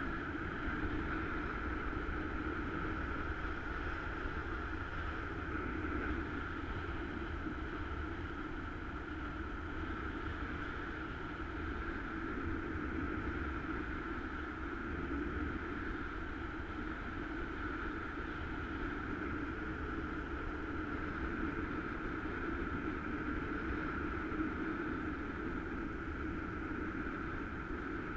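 Steady rush of wind over a camera in flight under a paraglider: an even, unbroken noise with a low rumble.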